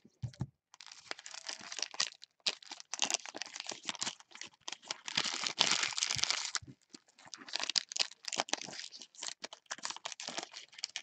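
Trading-card pack wrappers crinkling and tearing as gloved hands open packs. A soft thump at the start, then dense rustling from about a second in until about seven seconds, after which it breaks into scattered crinkles.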